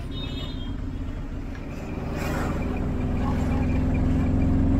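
Van engine running, heard from inside the cabin while driving in traffic, growing louder about halfway through as it pulls.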